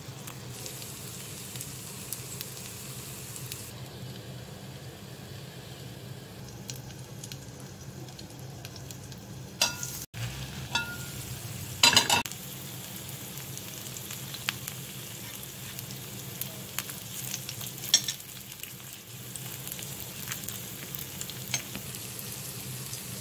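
Kuzhi appam batter and oil sizzling steadily in the wells of an aluminium kuzhi paniyaram pan as the appams fry. There are a few sharp clicks and knocks about halfway through.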